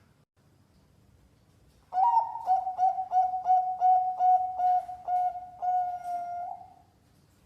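Zebra dove (perkutut) cooing, starting about two seconds in: a quick run of about ten short, even notes ending in one longer held note.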